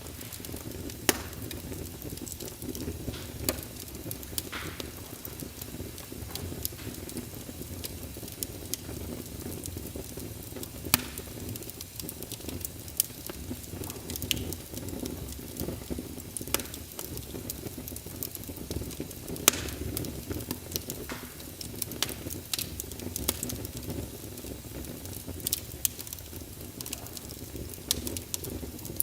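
Fireplace fire crackling: a steady low rush of flames with irregular sharp pops, a few of them much louder than the rest.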